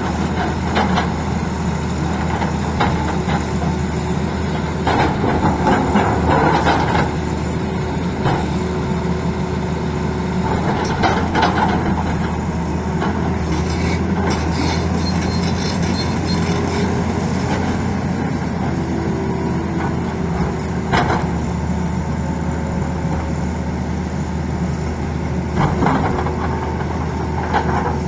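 Tata Hitachi excavator's diesel engine running steadily under work, with a few sharp knocks and clanks from the machine several times.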